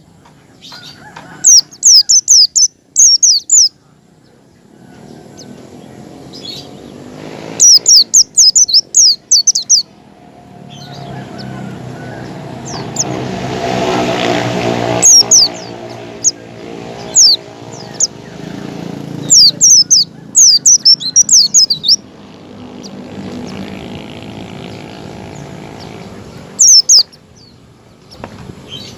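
White-eye (pleci) calls: clusters of sharp, high, quickly falling chirps in bursts every few seconds. A low droning hum swells and fades in the background around the middle.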